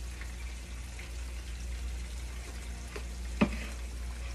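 Food frying in oil with a faint steady sizzle over a low steady hum, and one sharp knock about three and a half seconds in.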